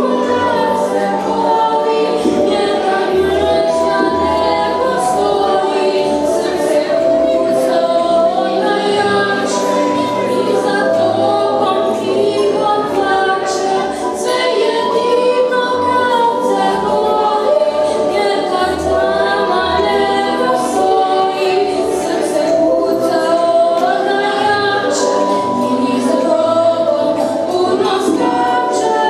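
School choir of children and teenagers singing a song together, several voices in harmony.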